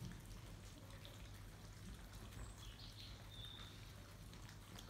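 Five-week-old St Bernard puppies eating dry kibble: a faint, irregular patter of small crunches and clicks from many mouths and the food bowl, with a brief high squeak about three seconds in.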